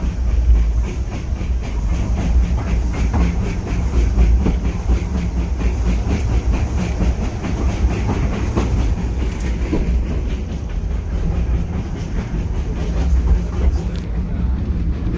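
Heritage railway train running on the rails: a steady low rumble with a fast, regular wheel clatter.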